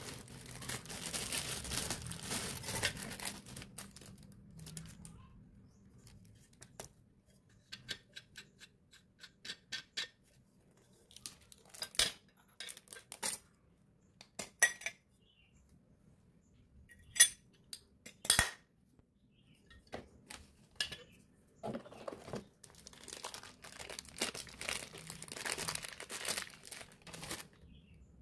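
Plastic packaging bags crinkling as espresso-maker parts are unwrapped, with the metal parts clinking and knocking as they are handled and set down. The crinkling comes at the start and again near the end; the sharp clinks fall in the middle, loudest a little past halfway.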